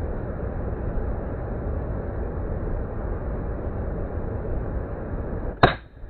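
A single shot from an Uklik bullpup PCP air rifle about five and a half seconds in: one sharp crack over a steady low background rumble.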